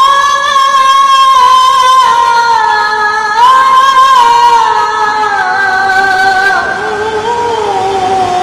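A male qari's melodic Quran recitation (tilawah) in a very high register: long held notes with ornamented wavering, the voice rising again about three and a half seconds in and then gliding slowly down in pitch.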